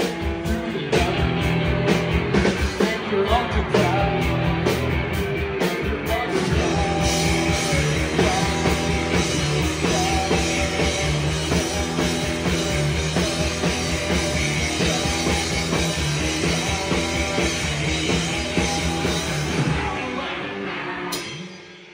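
Live rock band playing: electric guitars and bass over a steady beat, with the song fading out near the end.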